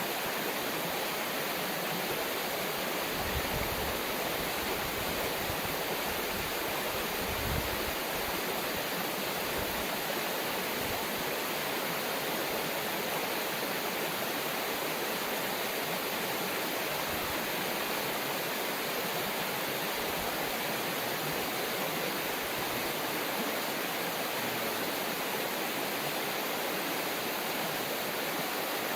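A river rushing steadily over rocks, an even, unbroken wash of water, with a few soft low thumps early on.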